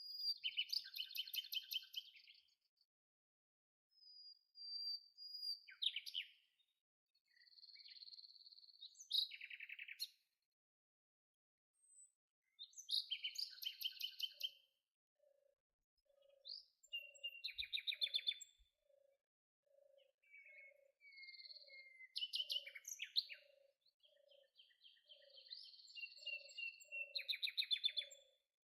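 Songbirds singing in short phrases of high chirps and rapid trills, with brief pauses between phrases. From about halfway, a short low note repeats steadily about twice a second beneath the song.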